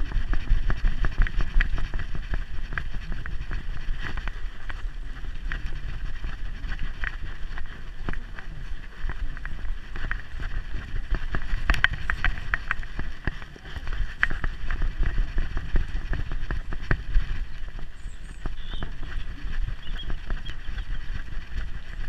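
GoPro camera strapped to a Staffordshire bull terrier's back, jostled as the dog moves: a steady low rumble with rapid irregular knocks and clicks from the mount and the dog's steps.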